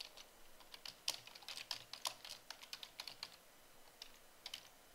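Typing on a computer keyboard: a quick run of faint keystrokes for about three seconds, a pause, then a couple more keystrokes near the end.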